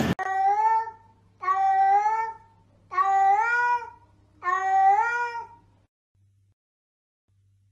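Domestic cat meowing four times, each meow about a second long and rising a little in pitch.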